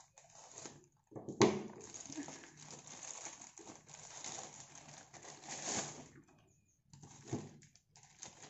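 A plastic courier mailer bag being cut open and pulled apart by hand, its plastic crinkling and rustling. The rustling starts about a second in with a sharp crackle, the loudest moment, and breaks off briefly near the end before starting again.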